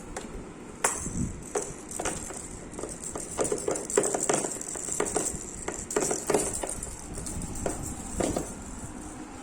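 Irregular taps, knocks and clinks, a dozen or more at uneven intervals, from a baby handling and banging on the parts of a stool.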